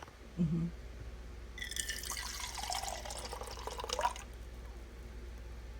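Water running out of the spigot of a small glass drink dispenser into a container for about two and a half seconds, its pitch falling and then rising. Just before it there is a short, low, louder sound, and a steady low hum lies under it all.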